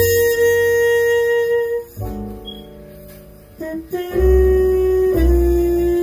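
Jazz from a vinyl record playing through hi-fi floor-standing speakers and heard in the room. A long held muted-trumpet note comes first, then a quieter passage about two seconds in, then louder notes over deep plucked double bass from about four seconds.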